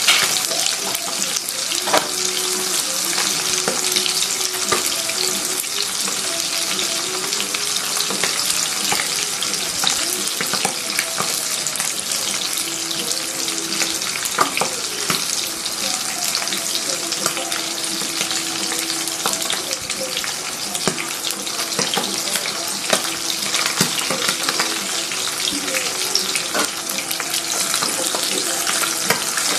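Butterflied dried milkfish (dinaing na bangus) frying in hot oil in a nonstick pan: a steady sizzle with frequent small crackles and pops of spattering oil.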